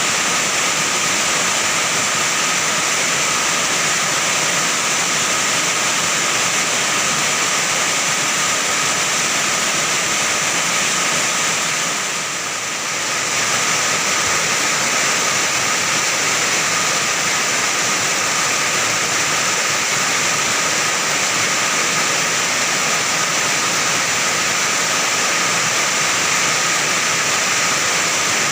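Heavy rain pouring onto an iron roof, a steady dense hiss that eases slightly for a moment about halfway through.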